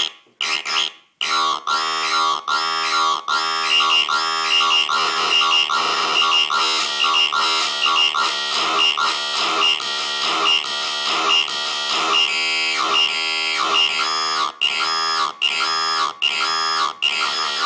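Master Looper handmade noise looper playing a looped electronic buzz. It starts with short choppy bursts, becomes a near-continuous repeating loop whose pattern shifts as the knobs are turned, and near the end breaks into separate pulses about twice a second.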